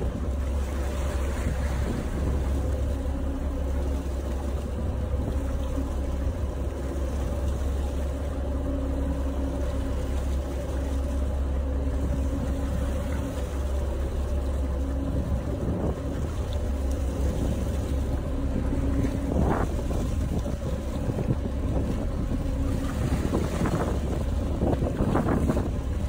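Steady low rumble of a motorboat under way: engine hum mixed with water rushing past the hull and wind on the microphone, with a few louder rushes of water near the end.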